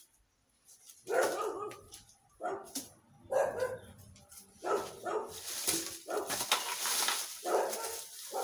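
A dog barking repeatedly in short barks, over a rustle of dry leaves and yard debris being gathered.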